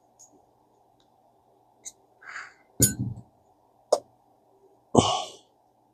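Small metal reel parts and tools clicking and knocking as a fishing reel is worked on by hand: a few separate clicks and clinks, the loudest knock about three seconds in, and a short rushing burst about five seconds in.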